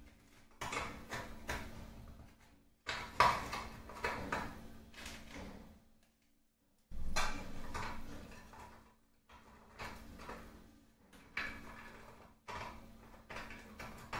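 Biscuits being handled and laid into a dessert box: bursts of clicks, taps and rustling in clusters, with short breaks about three and six seconds in.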